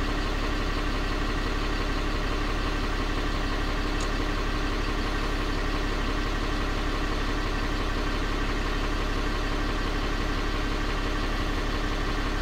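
Cummins 6.7 L inline-six turbo-diesel idling steadily with an even hum.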